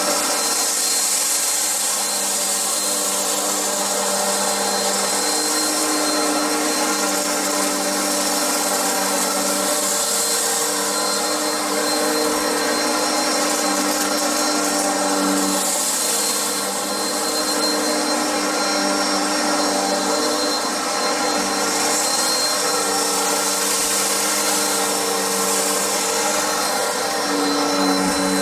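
Bissell upright vacuum cleaner running steadily on carpet: a constant motor whine over a rushing airflow noise, with one of its tones coming and going.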